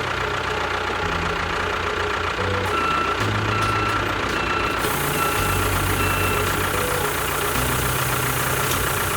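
Engine running steadily, mixed with background music that has a low bass line changing note every second or so and a short high tone repeating about twice a second.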